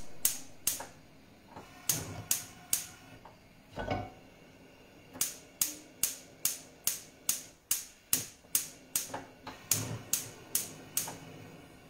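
Gas hob's electric spark igniter clicking as the burner knob is held in, a few clicks at first, then a steady run of about two to three clicks a second that continues after the burner has lit and stops about eleven seconds in. A dull thump about four seconds in.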